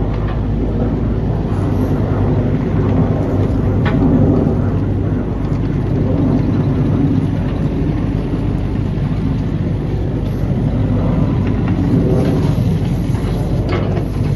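Volvo ECR48C midi-excavator's diesel engine running steadily, swelling a little at times as the machine works, with a sharp knock about four seconds in and another near the end.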